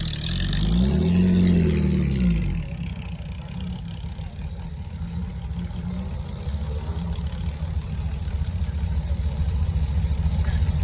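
Historic racing car engine blipped once, the note rising and falling, then settling to a low idle rumble about two and a half seconds in. From about the middle a deeper engine rumble builds, growing steadily louder toward the end.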